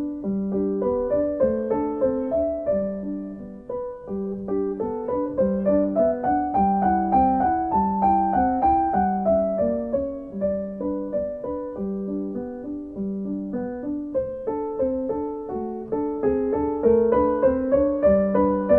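Solo piano music: a low note repeating about once a second under a flowing melody of higher notes.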